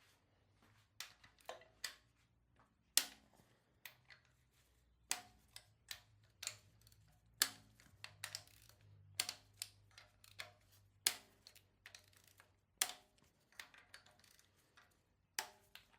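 Steel valvetrain parts from a 7.3 IDI diesel clinking and clanking as they are pulled out and set down. There are about fifteen sharp metallic knocks at irregular intervals, some with a short ring.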